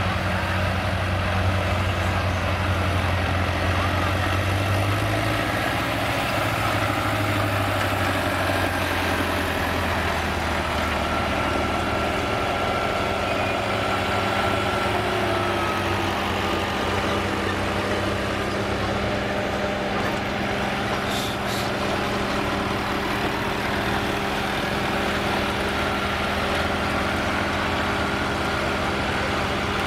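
Diesel farm tractor engines idling steadily at low revs, with a deeper engine drone for the first several seconds that then eases into a steadier, lighter idle.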